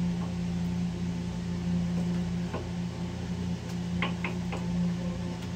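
Steady low machine hum, with a few light clicks and taps about two and a half seconds in and again around four seconds in.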